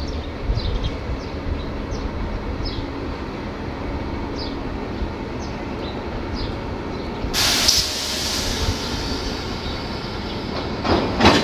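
CSR SDA4 diesel-electric locomotive running at low speed as it couples onto a train of cement wagons. There is a steady low rumble, with a loud burst of noise that fades about seven seconds in and another near the end.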